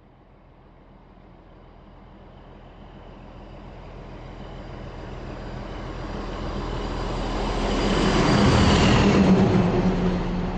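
Large truck approaching, its engine and road noise growing steadily louder until it passes closest about nine seconds in, then starting to fade.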